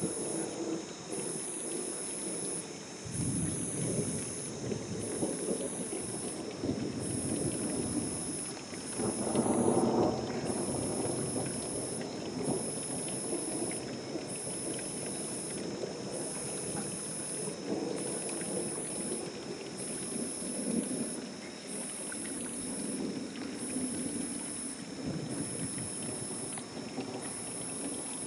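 Thunderstorm: low thunder rumbling on and off, loudest in a peal about nine to ten seconds in, over the hiss of rain. A high buzz pulses on and off about every second and a half.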